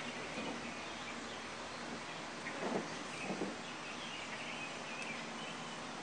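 Steady outdoor background noise with faint high chirps, and two brief soft sounds about halfway through.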